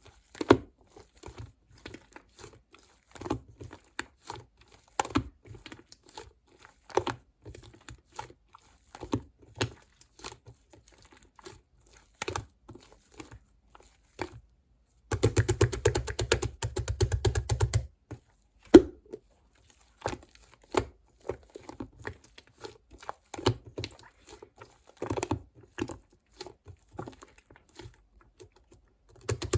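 Crinkly material being handled: scattered crackles and rustles, with about three seconds of fast, even rubbing or scrunching near the middle.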